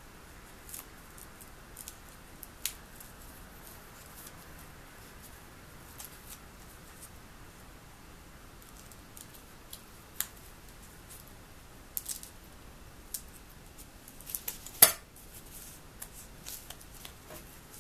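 Scissors snipping thin polyethylene foam underlayment: sparse, sharp little clicks of the blades closing, with one louder knock near the end.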